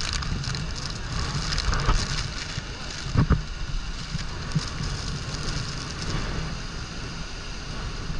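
Horseshoe Falls pouring over its brink: a steady, heavy rush of falling water. Wind buffets the microphone in gusts, strongest about three seconds in.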